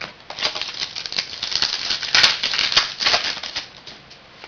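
Trading cards and their pack wrapper being handled: a dense run of crinkling, flicking rustles that dies away near the end.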